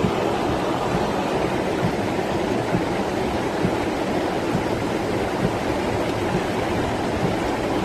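Rainwater runoff rushing steadily down a street in a cloudburst, a continuous torrent with no letup.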